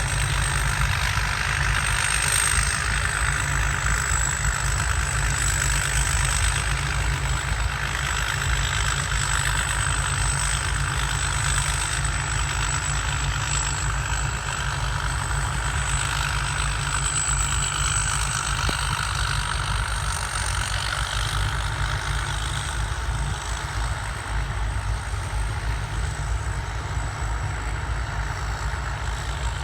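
Rice combine harvester's turbocharged diesel engine running steadily, a high turbo whistle that drifts slightly in pitch riding over the deep engine note.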